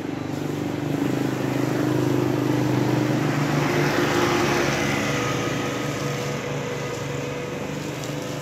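A motor vehicle's engine passing on the road, growing louder to a peak about halfway through and then fading.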